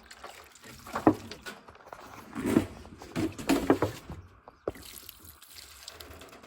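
Water poured from a plastic gallon jug through wire rabbit cages, coming in uneven splashes and spatters as it hits the bowls, cage and floor.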